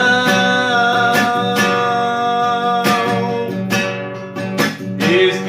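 Worship song: a man sings a long held note on the word "unção" over a strummed acoustic guitar.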